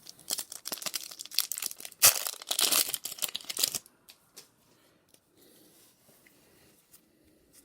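A foil booster pack wrapper being torn open and crinkled: about four seconds of dense tearing and crackling, which then dies down to faint handling.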